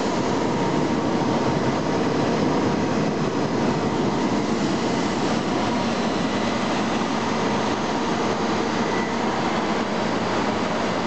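Vactor 2100 combo sewer truck running with its jetter system working: a steady, loud machine drone of engine and water pump, with faint constant whines over it.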